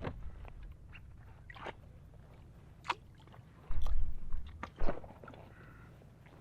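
Scattered light knocks and clicks of fishing gear being handled in a small boat, with a heavier low thump a little under four seconds in and another about a second later.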